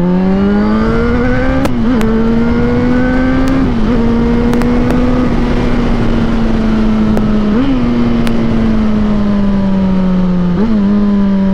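Yamaha XJ6's 600 cc inline-four engine accelerating while riding, its pitch climbing over the first couple of seconds, then holding high with a few brief wobbles and easing down near the end. Wind noise rushes over the microphone throughout.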